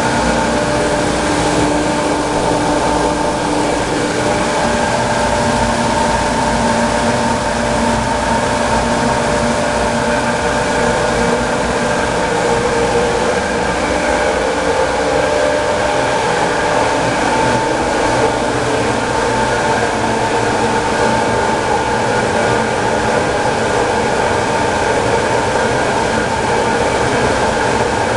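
Small water turbine and generator running steadily with a constant whine, over the rush of falling water.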